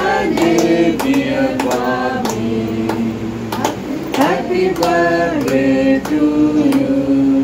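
Voices singing a birthday song in long held notes that step from one pitch to the next.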